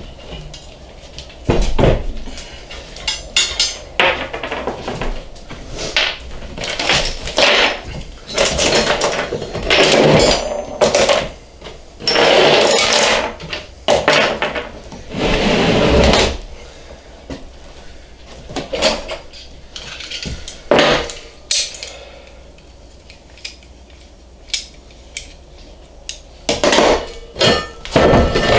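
Steel workshop parts being handled: irregular clanks and knocks of metal on metal, with a couple of longer noisy stretches near the middle.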